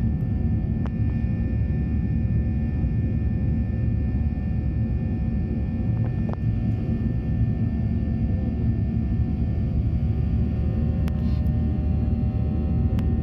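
Jet airliner cabin noise during the climb: the steady low rumble of the engines and rushing air, with a few faint constant tones above it and several faint clicks.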